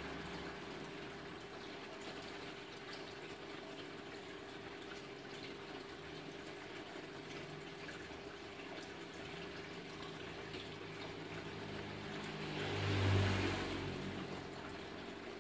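Aquarium air bubbler and water circulating in a fish tank, a steady watery hiss over a constant low hum. Late on, a rumbling noise swells and fades, the loudest moment.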